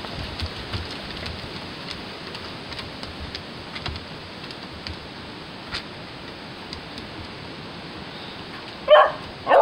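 Beagle barking twice in quick succession near the end, over a steady hiss with faint scattered ticks.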